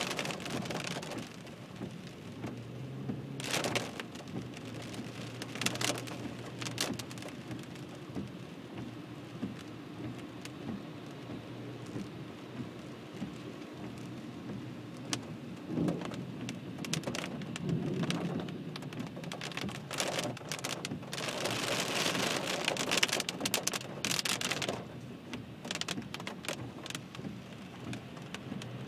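Heavy rain pattering on a car's windshield and roof, heard from inside the moving car, with sharp drop hits that come thicker past the middle, over a steady low hum from the car.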